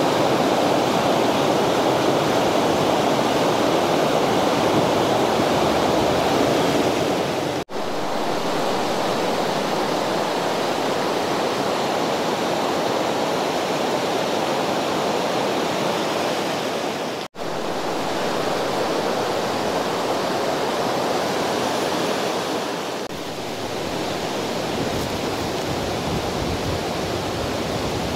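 Steady rush of a river waterfall, an even roar of water that cuts out for an instant twice and settles a little quieter near the end.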